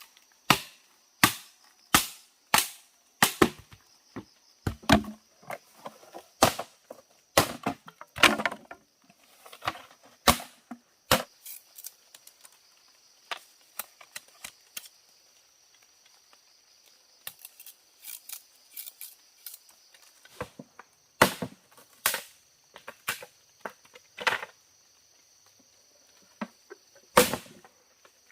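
Sharp, loud wooden knocks, about one every two-thirds of a second for the first eleven seconds, then sparser scattered strikes: chopping wood with a blade.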